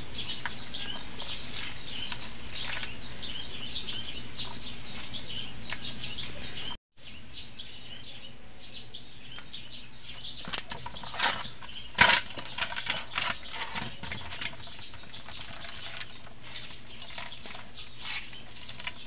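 Hands squeezing and kneading wet grated coconut to press out pure coconut milk with no water added, a wet squelching and rustling. The sound drops out briefly about seven seconds in, and there is one sharp knock about twelve seconds in.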